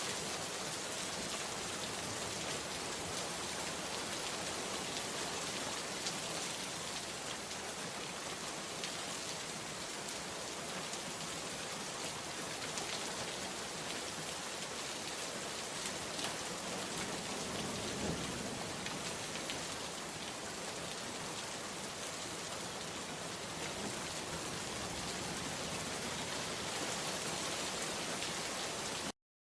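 Steady rain falling, an even dense hiss of many drops. It cuts out to silence for a split second near the end.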